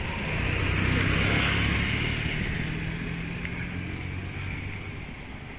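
A motor vehicle passing on the street, its engine running steadily and loudest about a second in, then fading away.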